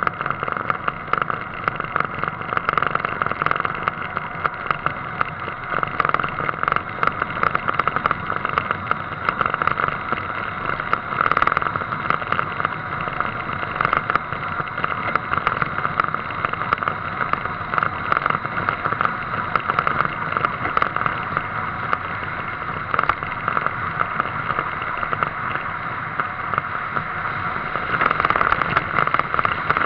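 A car driving along steadily: a continuous rush of wind and road noise, crackling, picked up by a camera mounted on the outside of the car's body. It grows a little louder near the end.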